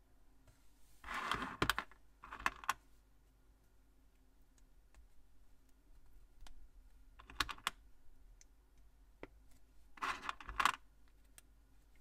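Small plastic Plus-Plus building pieces clicking and clattering as they are handled and pressed together, in four short clusters of clicks with faint single clicks between; the loudest clusters come about a second in and near the end.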